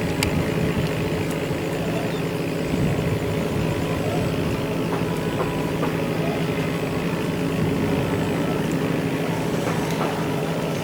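Heavy engine running steadily at an even speed, with a few faint clicks.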